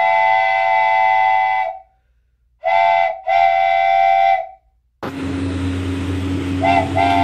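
Train horn sounding in a chord of several tones: one long blast, then a short toot and another long blast. About five seconds in, the steady rumble of a running train starts, and the horn gives another short toot and begins a long blast near the end.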